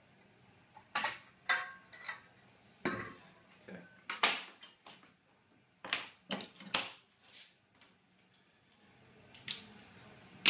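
Irregular clatter and knocks of metal being handled and set down on a wooden workbench: a length of steel trunking and hand tools such as a steel rule and scribe. About a dozen sharp knocks come in the first seven seconds, then it goes quiet apart from one more knock near the end.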